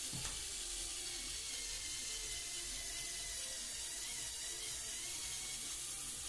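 Lego Technic 8297 Off-Roader's electric winch reeling in its cable: a steady, noisy whir of the motor and its gear train, with a faint wavering whine.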